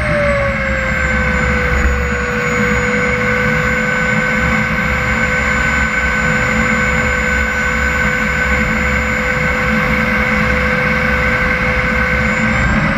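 Model jet turbine of a CARF Viper RC jet whining steadily at idle, having just spooled down, with a steady low rumble from the undercarriage rolling on asphalt. The whine climbs slightly near the end.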